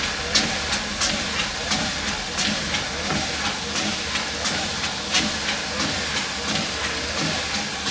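Walking pad treadmill running: a steady motor and belt hum with footsteps striking the deck about three times a second.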